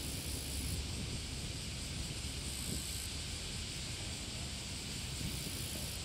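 Strong wind buffeting the microphone, a steady fluttering low rumble with hiss over it.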